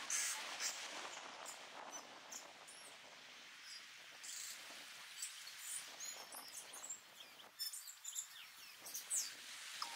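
Small waves lapping gently on a sandy beach, a soft steady wash, with scattered short high chirps and calls from birds standing out above it.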